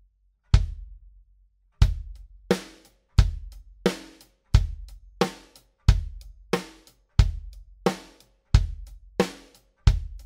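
Drum kit playing a steady beat of kick drum, snare and cymbals, with a few spaced hits before the beat settles in about two seconds in. The kick drum is miked inside a tunnel made of a small table and a heavy shipping blanket built out from its front head.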